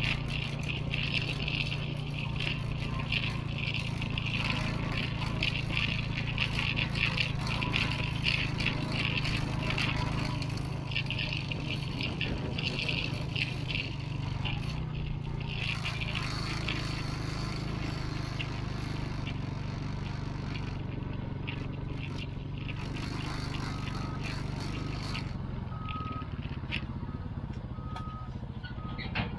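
Diesel engines of heavy land-clearing machinery (a CAT excavator and a loader) running steadily, with footsteps crunching through dry grass. Near the end a reversing alarm starts beeping at an even pace.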